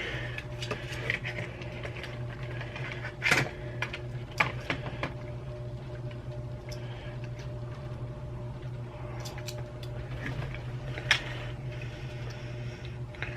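Small plastic clicks and taps from handling and prying at the parts of a computer mouse during repair, the sharpest about three, four and a half and eleven seconds in, over a steady low hum.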